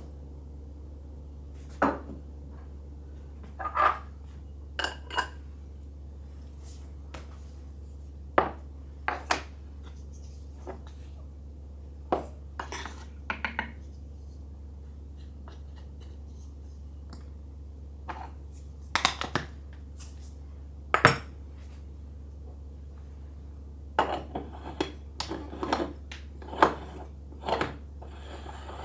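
Irregular clinks and knocks of hard objects being handled and set down, coming in small clusters with pauses between, over a steady low hum.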